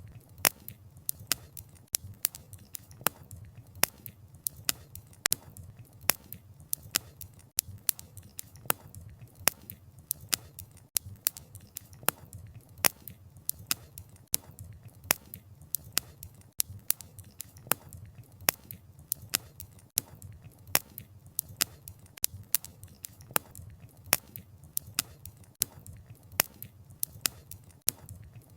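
Wood bonfire crackling: irregular sharp snaps and pops of burning logs, a few each second, over a low, steady rush of the flames.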